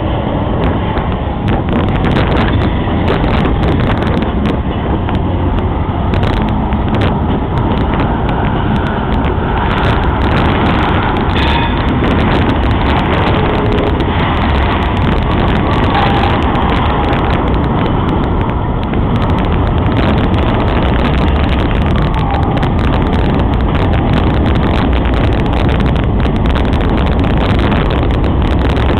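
Freight cars rolling slowly past on a spur line: a steady rumble of steel wheels on the rails with irregular clicking and clacking from the wheels over the track.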